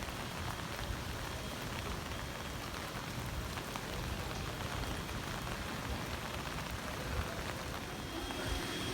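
Steady rain falling, a even hiss with many small drop ticks, from the rain bands of the approaching Typhoon Hagibis, with a low uneven rumble underneath.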